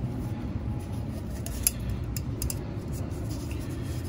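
Light clicks and taps of a plastic oil filter housing cap being handled on the engine, with one sharp click about a second and a half in and a few more shortly after, over a steady low background rumble.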